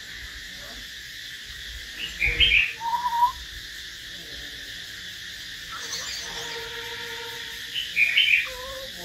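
Caged hill myna and white-rumped shama singing: two loud bursts of calls with quick pitch glides, about two seconds in and near the end, with a long steady whistle in between.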